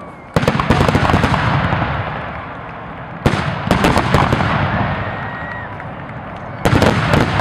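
Fireworks going off in three volleys about three seconds apart. Each starts with a sudden bang and runs into a rapid string of crackling reports that fades away.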